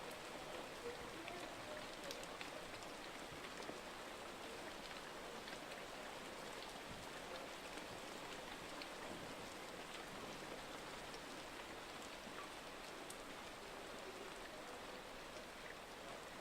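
Steady rain falling, a faint, even hiss with a few light drop ticks.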